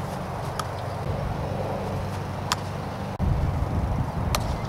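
Steady low outdoor rumble that grows louder about three seconds in, with a few short sharp clacks on top, the clearest about two and a half seconds in and another near the end.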